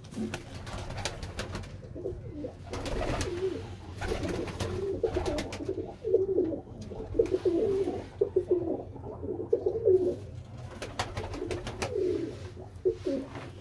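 Domestic pigeons cooing repeatedly in a loft, a low warbling coo again and again, with scattered clicks and rustles.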